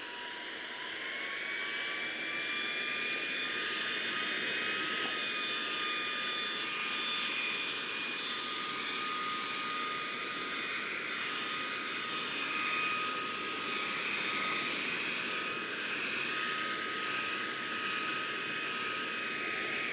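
AGARO Sapphire cordless handheld vacuum cleaner with a brushless motor, running at suction with no attachment fitted: a steady high motor whine over rushing airflow hiss. The whine's pitch creeps up over the first couple of seconds, then holds.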